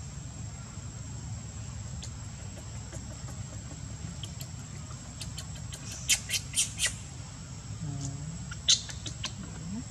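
A baby monkey's short, high-pitched squeaks: four in quick succession a little past halfway, and one more near the end, over a steady low background hum and a thin high whine.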